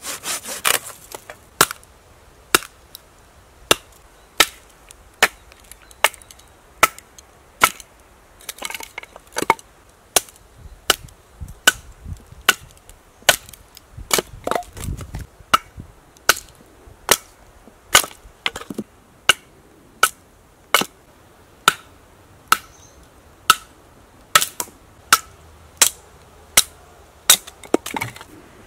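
A Survival Lilly APO-1 fixed-blade bushcraft knife being batoned through wood: a wooden baton strikes the knife's spine in a steady series of sharp knocks, a little more than one a second, with a low thud about halfway through. It opens with a moment of the knife sawing a branch.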